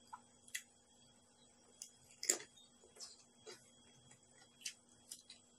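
Light, scattered clicks and taps of a spoon on a plastic plate and clam shells being handled while eating, about eight in all, the sharpest about two seconds in.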